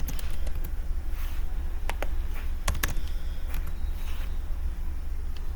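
A few sharp, scattered laptop keyboard key clicks over a steady low electrical hum.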